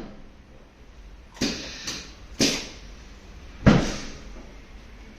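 A patient turning over onto the stomach on a padded treatment table: a few brief rubbing and shifting noises, then one heavier thump nearly four seconds in.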